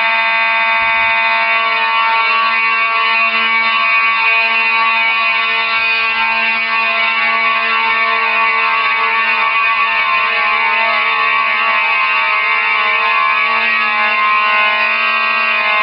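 Dormitory fire alarm sounding continuously: one steady, harsh, unwavering tone, ear-splitting loud. It is a false alarm set off by a malfunction in the building's alarm system.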